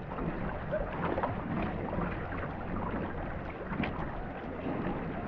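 Paddles stroking through river water beside a marathon racing canoe: a steady splashing wash with short splashes from the strokes, over a low rumble of wind on the microphone.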